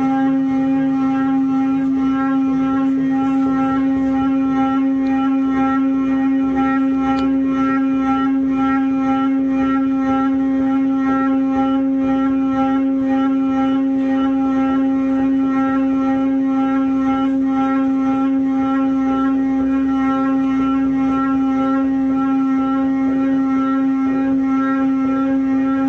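A single sustained musical drone held on one steady pitch, with a strong low fundamental and a stack of overtones, unbroken and unchanging throughout.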